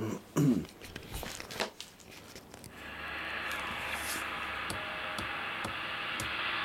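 Uniden Pro 810e CB radio's receiver hiss from its front speaker, a steady static that comes up about three seconds in. Light clicks about every half second near the end as the channel selector is stepped down through the channels.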